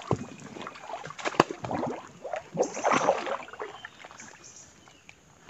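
Floodwater sloshing and splashing around the legs of a person wading through it, in irregular surges that die down about four seconds in.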